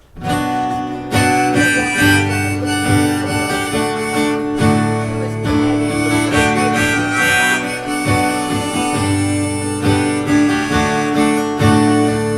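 Acoustic guitar and harmonica playing an instrumental song intro, starting abruptly right at the beginning after a brief moment of near silence.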